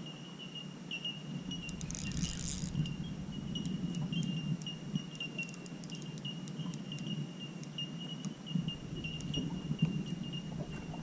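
Spinning reel and rod being worked while a hooked fish is played: rattly handling and cranking sounds, with a burst of rapid clicking about two seconds in. A steady high-pitched whine runs underneath.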